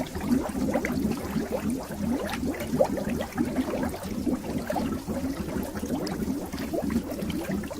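Water bubbling continuously: a dense stream of small bubbles popping and gurgling, each a short rising blip.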